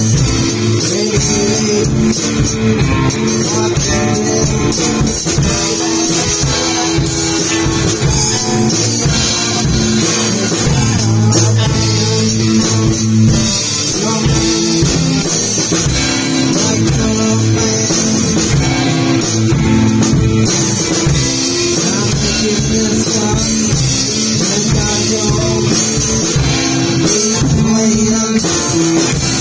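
Rock band playing a loose, improvised jam: two electric guitars over a drum kit, with a vocalist singing into a microphone.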